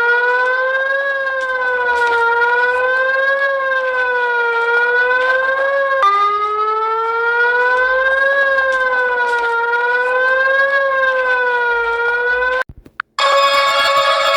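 Emergency-alert siren tone, one steady pitch with overtones that rises and falls gently about every two and a half seconds, starting over about six seconds in. It cuts off near the end, and music with plucked strings begins.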